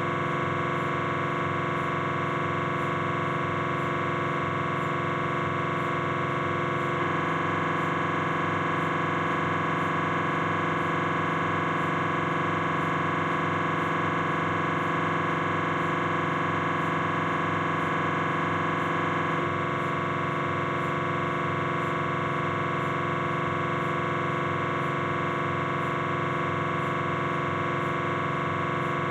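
Philips 1.5 T MRI scanner's gradient coils buzzing during a T1-weighted coronal knee sequence: a steady electronic tone with many overtones, pulsing rapidly. About seven seconds in the tone changes and grows slightly louder, and about twelve seconds later it drops back to the earlier pattern.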